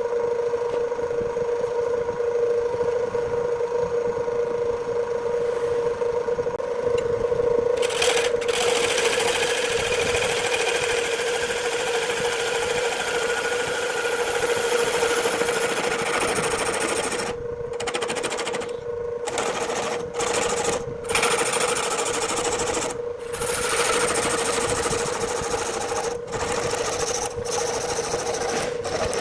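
Electric wood lathe running with a steady motor hum. About eight seconds in, a turning tool starts cutting the spinning wood, adding a loud scraping noise that breaks off briefly several times in the second half.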